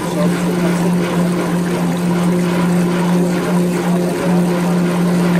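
Tour boat's engine running steadily, a constant low hum over an even rushing hiss, heard from on board while the boat cruises.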